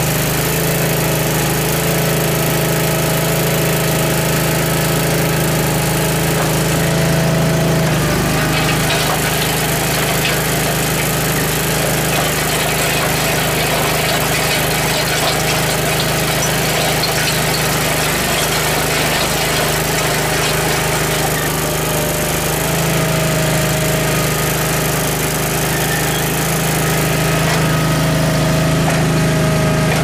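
Toro Dingo TX420 mini skid steer's engine running steadily while driving a hydraulic planetary auger that bores into gravel. The engine note changes about eight seconds in, with a rougher, noisier sound until about twenty-two seconds, as the auger digs, then settles back as the bit lifts out.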